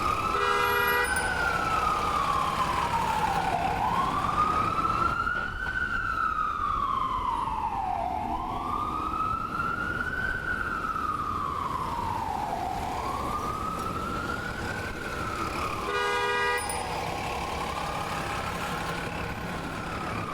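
Ambulance siren in slow wail mode, its pitch rising and falling about every four and a half seconds. Two short horn blasts cut in, one about half a second in and one near the end.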